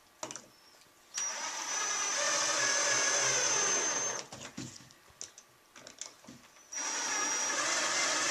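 Electric drill driving long screws into a wooden cabinet drawer, in two runs of about three seconds each, the second starting near the end, the motor whining steadily. A few clicks and knocks of handling come between the runs.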